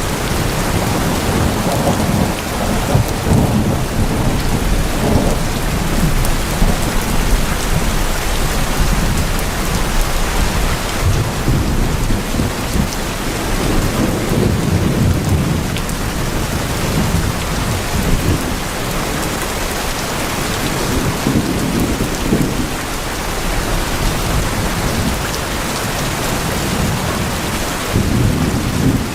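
Heavy rain drumming on tin roofs: a steady, dense hiss with low rumbling swells that rise and fall.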